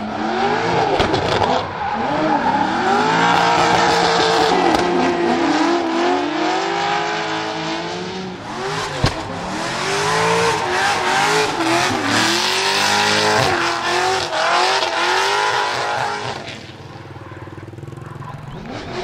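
A Mast Motorsport LS7 V8 in a Nissan 200SX S13 pick-up drift car revving hard through a drift. The pitch swings up and down as the throttle is worked, with tyres squealing under the smoke. There is a single sharp bang about nine seconds in, and the engine falls quieter for the last couple of seconds as the car moves away.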